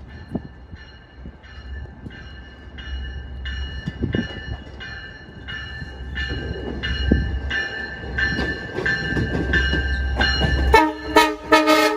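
Grade-crossing warning bell ringing steadily, about three strokes a second, as a Long Island Rail Road push-pull train led by a C3 bilevel cab car approaches with a growing low rumble. Near the end the train's horn sounds in short, loud blasts.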